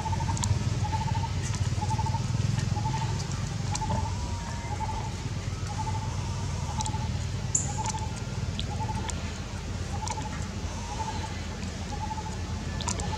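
A bird repeating one short trilled call over and over, roughly every two-thirds of a second, over a steady low rumble.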